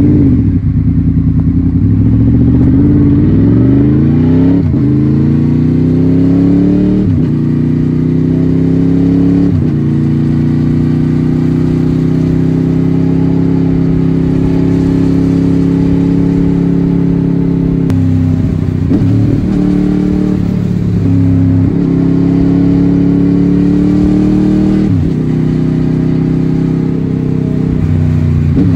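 Honda VFR800's V4 VTEC engine under way, heard from the rider's seat. It pulls up through the gears, its note rising and then dropping at three upshifts in the first ten seconds or so. It then holds a steady cruising note, with a few brief lifts and shifts later on.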